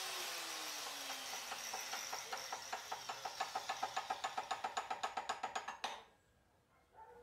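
An angle grinder's hiss dies away with a falling whine as it spins down, then a steady run of sharp metallic ticks, about six or seven a second, grows louder and stops suddenly near the end.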